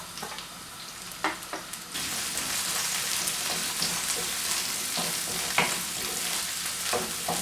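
Sliced onion and frozen, wet green chillies frying in hot sunflower oil in a pan, with a few clicks of a spatula. About two seconds in the sizzle jumps sharply louder and then holds steady, as the frozen curry leaves go into the oil.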